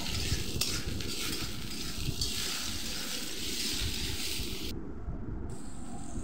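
Chopped tomato, onion and capsicum sizzling in oil in a wok over a low flame while a spatula stirs them, with a couple of light spatula scrapes; the sizzle's hiss drops away about five seconds in.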